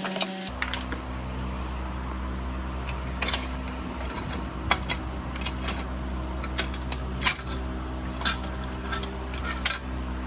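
Scattered sharp metallic clicks and clinks of hand tools and fittings being worked around a turbocharger's compressor housing during disassembly, over a steady low hum that sets in about half a second in.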